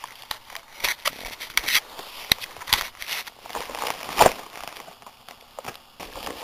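Packaging being crinkled and torn open by hand: a run of irregular crackles and snaps, with one loud sharp crack about four seconds in.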